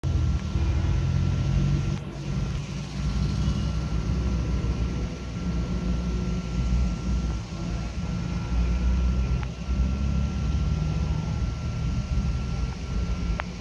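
Cars passing on the road over the bridge: a low engine and road rumble that swells and eases several times. A faint steady high whine runs underneath, with a couple of short clicks.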